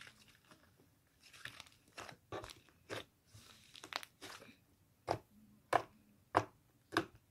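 Butter slime being worked by hand: soft, irregular squishing and crackling in the first half, then a steady run of sharp clicks or pops, about one every two-thirds of a second, as it is pressed and released.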